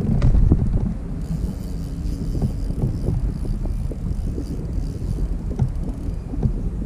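Wind rumbling on the microphone, with scattered light knocks and taps from the kayak and fishing gear.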